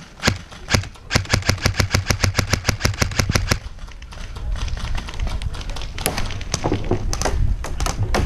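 Airsoft electric gun firing: a couple of single shots, then a full-auto burst of about two and a half seconds at roughly eleven shots a second. After the burst there are a few scattered shots over a low rumble.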